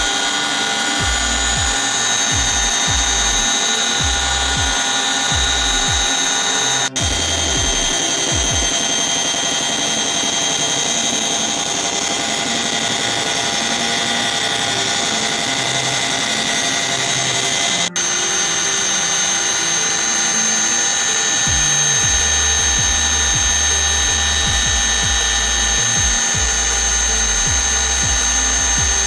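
Helicopter in flight: a steady, loud turbine and gearbox whine of several high tones over a low pulsing rotor beat, briefly dropping out twice.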